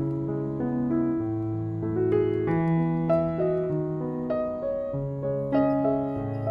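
Background piano music, a slow melody over held low notes.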